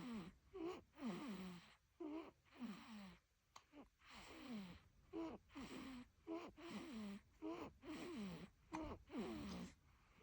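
A sleeping baby breathing noisily: short voiced breaths about once a second, each dropping in pitch, with breath hiss over them.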